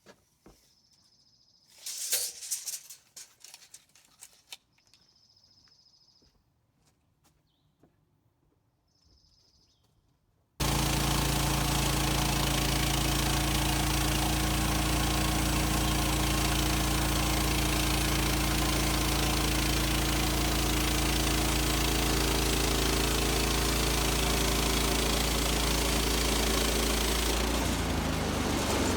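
Quiet at first, with an insect trill coming and going and a few knocks and clatters. Then, about ten seconds in, the gasoline engine of a Woodland Mills HM130 Max bandsaw sawmill cuts in abruptly, running loud and steady, its pitch dropping slightly near the end.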